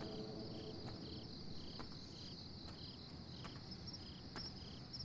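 Night-time crickets: a steady high trill with a second insect chirping in short pulses about twice a second, faint.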